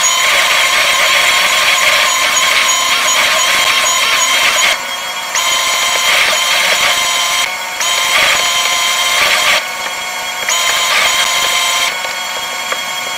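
Electric drive motors of a Jabo 2 bait boat running, heard from inside the hull as a loud, steady whine of several high tones. The sound steps down in level a few times and picks up again.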